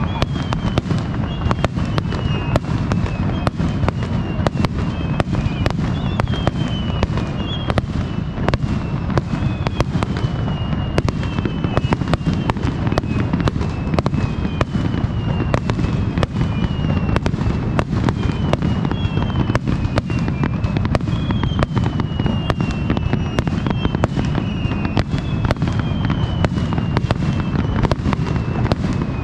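Fireworks display: a dense, unbroken barrage of aerial shell bursts, many rapid bangs over a steady low rumble, with repeated short falling whistles.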